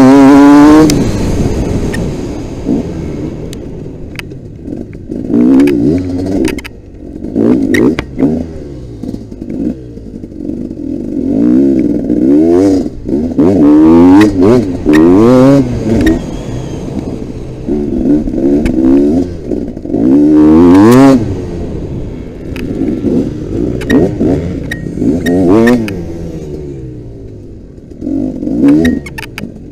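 Motocross bike engine racing around a dirt track: its pitch climbs again and again as it pulls through the gears, then drops back as the throttle closes for corners, with scattered knocks and clicks from the bike over the rough ground.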